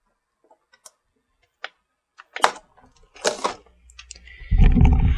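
Plastic toy packaging being handled and pried at: a few scattered light clicks, two louder crackling rustles around the middle, then a loud low rumble of handling noise near the end.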